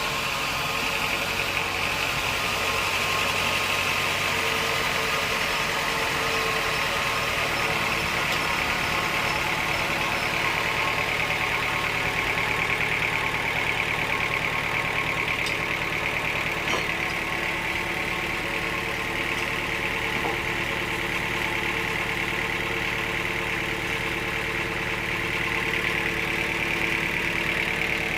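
Band sawmill running steadily through a teak log: an even motor hum under a continuous higher sawing noise.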